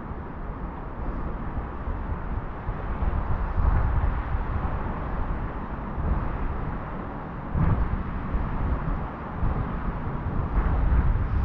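Wind buffeting the microphone in irregular gusts, with a steady outdoor rush beneath.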